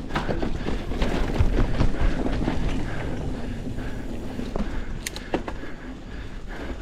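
Mountain bike ridden along a dirt singletrack: steady tyre rumble with frequent clicks and rattles from the chain slapping and the bike jolting over bumps.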